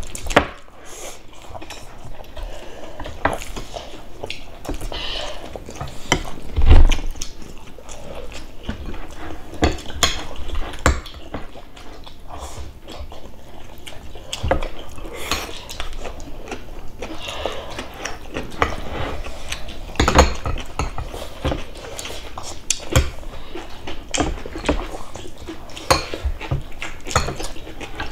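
Tableware clatter of a meal: metal chopsticks and spoons clicking and tapping against ceramic bowls and plates in scattered strokes. There is one louder, deeper knock about seven seconds in.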